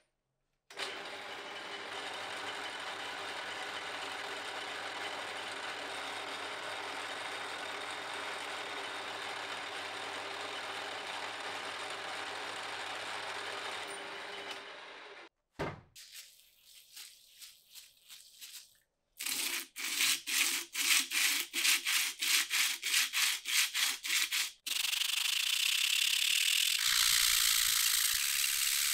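A milling machine running steadily for about fourteen seconds. After a short gap come regular rubbing strokes, about three a second, and then continuous hand sanding of a steel wrench jaw on abrasive laid over a flat stone block.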